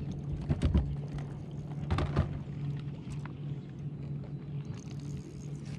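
Thumps and knocks on a bass boat's deck as an angler fights a fish on a bent rod, over a steady low hum; the strongest knocks come about half a second in and again about two seconds in.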